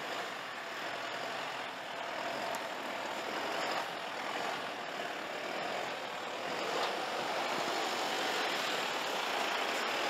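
Mercedes-Benz Unimog U4023 truck with its 5.1-litre four-cylinder diesel running steadily as it crawls slowly over snow and rocks, mixed with the crunch and rush of its tyres on the snowy ground. It grows a little louder toward the end.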